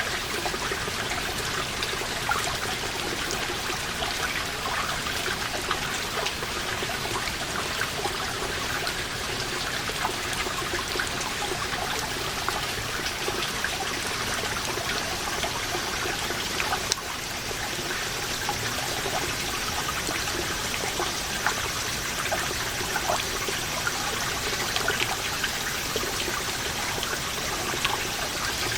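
Water seeping from a moss-covered wall falling as many small drops, a dense, steady trickle and patter of drips, with cicadas singing behind it.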